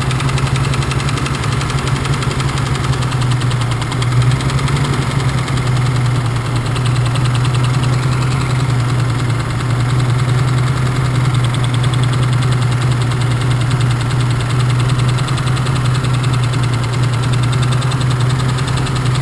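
BMW M30 straight-six engine idling with a knock while ignition leads are pulled one cylinder at a time to find the knocking cylinder.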